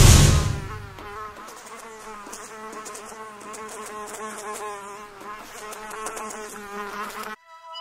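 A loud deep boom that fades over about a second, then a housefly's wing buzz wavering up and down in pitch as it flies about, cutting off suddenly near the end.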